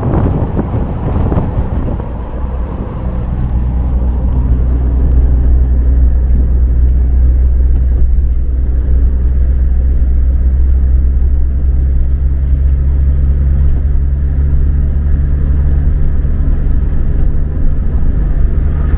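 Cabin noise of a Volkswagen Kombi van driving: a steady low engine and road rumble. It is rougher for the first couple of seconds, grows louder, then settles into an even drone with a steady hum.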